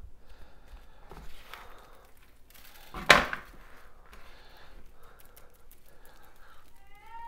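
A rack of raw pork side ribs turned over and slapping down onto a metal baking sheet, one sharp hit about three seconds in. Around it are the quieter sounds of gloved hands and a seasoning shaker working the meat.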